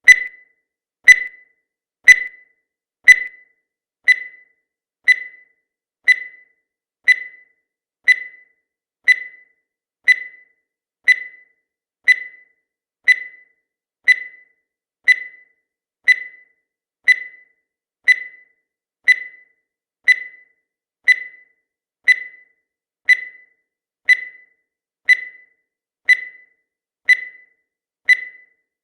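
Countdown timer sound effect: a short high beep once every second, each starting sharply and fading quickly.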